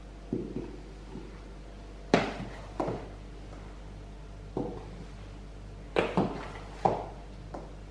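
Plastic flour scoop knocking against a plastic flour tub and the steel bowl of a spiral dough mixer while flour is scooped and tipped in: a series of short knocks at uneven intervals, the sharpest about two seconds in and around six to seven seconds.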